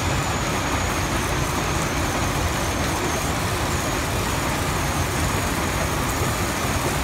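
TerexFinlay J-1170 jaw crusher and C-1550 cone crusher running together while crushing rock: a steady, dense machinery din of engines, crushers and conveyors, with a faint thin high whine over it.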